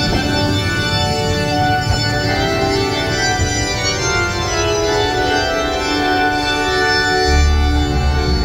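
Organ music from the ride's show soundtrack, slow sustained chords that change every second or so. A low rumble joins in near the end.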